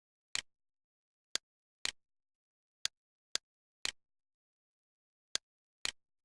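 A series of sharp, dry clicks against dead silence, falling on a half-second beat with gaps: single clicks alternating with doubled clicks that trail off briefly, about eight in all.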